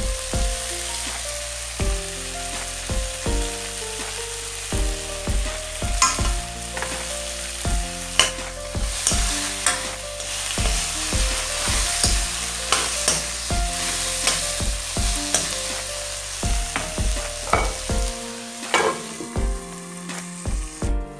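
Chicken and radish greens frying in an aluminium kadai: a steady sizzle with occasional sharp clicks. A soft melody with a low, regular beat plays underneath.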